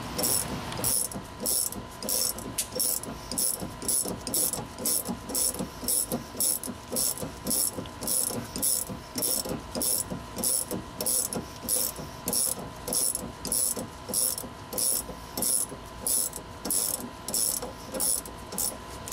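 Ratcheting box-end wrench (GearWrench) working the upper shock-mount nut off a Honda Civic rear shock: an even run of ratchet clicks with each back-swing, about two to three strokes a second.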